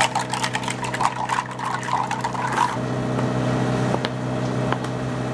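Water and ice cubes splashing and clinking in a clear plastic cup for about two and a half seconds, then two light clicks of ice cubes on a wet tabletop, over a steady background hum.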